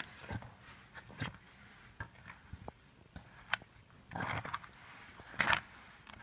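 A hand kneading and squeezing a moist homemade fish-bait mix of chopped leaves, cold rice and bran in a metal basin: irregular soft rustling and squelching, loudest about four seconds in and again about five and a half seconds in.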